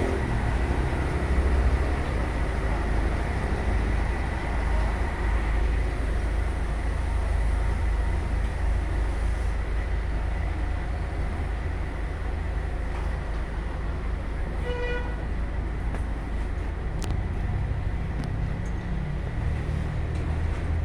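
Heavy diesel truck engines of a concrete pump and ready-mix trucks running steadily, a deep rumble. A single short beep sounds about fifteen seconds in.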